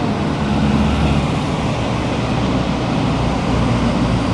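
Race convoy cars, team cars and official cars, driving past close by: a steady rumble of engines and tyre noise.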